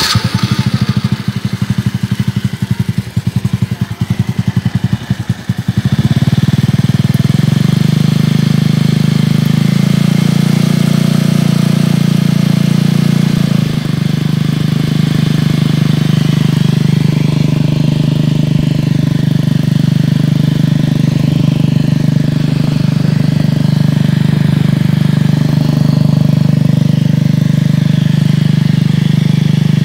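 Motorcycle engine driving a makeshift water pump, firing unevenly for about the first six seconds and then settling into a steady run.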